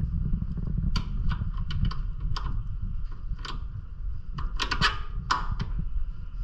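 Sharp metallic clicks and knocks of suspension parts and hardware being handled as a shock absorber is worked into its mount, in scattered groups, over a steady low rumble.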